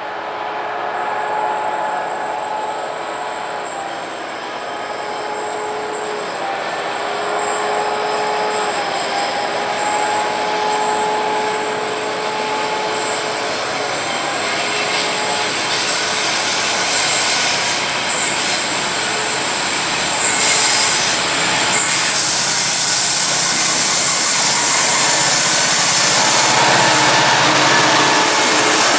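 Diesel locomotives of a grain train approaching and passing close, growing steadily louder and loudest from about two-thirds of the way in. A steady squeal comes from the wheels on the curved track.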